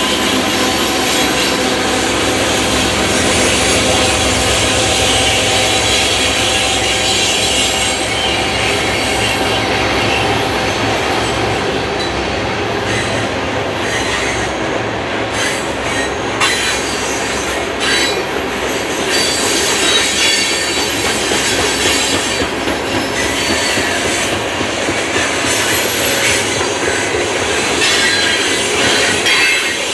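Loaded coal cars of a long freight train rolling past: steel wheels running on the rail with a steady squeal and some clicks over rail joints.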